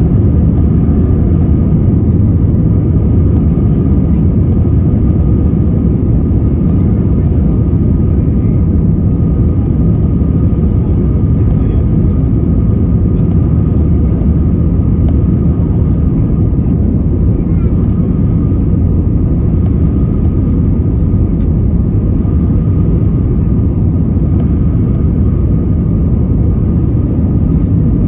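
Steady cabin noise inside an Airbus A320neo rolling along the runway: a loud, even rumble of engines and wheels with a thin steady tone on top.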